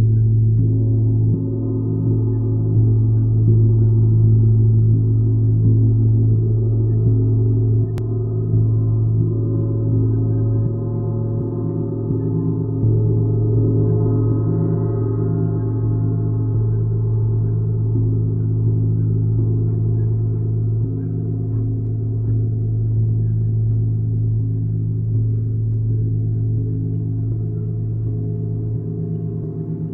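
Venus planetary gong played continuously with a soft mallet, giving an unbroken deep hum with a slowly pulsing wash of overtones above it.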